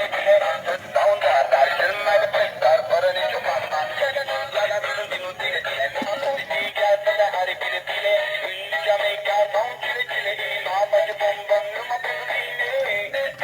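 Music with a synthetic-sounding singing voice playing continuously, thin and tinny with almost no bass.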